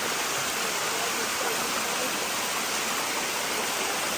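Water rushing steadily down a waterfall's limestone cascades.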